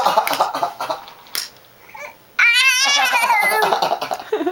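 A high, wavering squeal from a voice, lasting about a second from a little past halfway, with softer babbling sounds around it.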